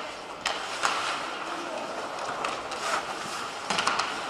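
Ice hockey play: a steady arena murmur with sharp clacks and scrapes of sticks, puck and skates on the ice, one under a second in and a cluster near the end.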